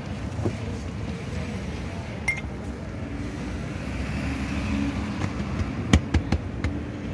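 Steady low rumble of street traffic, with a few sharp knocks about six seconds in.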